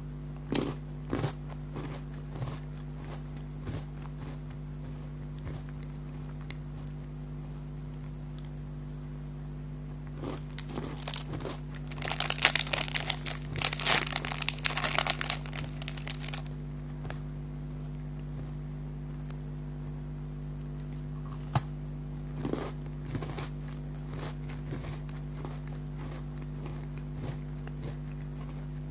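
A food wrapper crinkling and tearing in a dense burst of about four seconds midway, with scattered crunchy bites and mouth clicks before and after. A steady low hum lies underneath.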